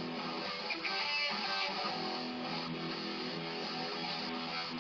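Electric guitar playing a blues-rock riff, sustained chords and notes with no singing.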